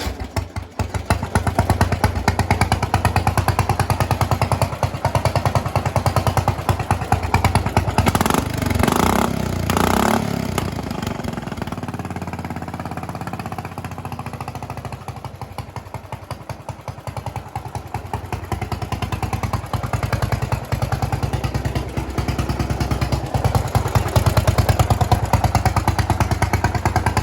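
Turbocharged 14 hp single-cylinder Briggs & Stratton lawn mower engine running with rapid, even firing pulses, its revs rising and falling: higher at first with two louder bursts about a third of the way in, settling lower in the middle, and picking up again near the end.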